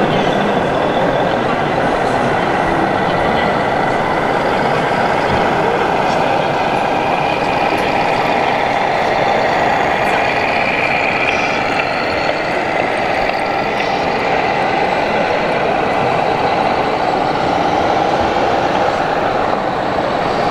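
1:14 scale RC Mercedes-Benz Actros tanker truck driving slowly, its sound module playing a steady diesel truck engine, heard over the constant noise of a busy exhibition hall.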